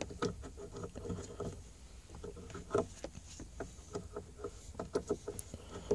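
Scattered small clicks, taps and rustling as an OBD-II code reader's plug is handled and pushed into the diagnostic port under the dashboard, with a sharper click near the end.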